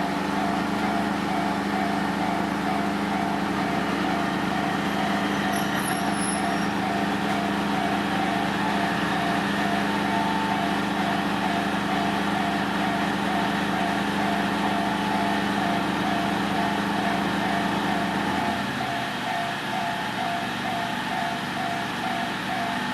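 Railway level-crossing warning bell ringing in an even, repeating two-tone pattern. Underneath it runs a steady low drone that cuts off about eighteen seconds in.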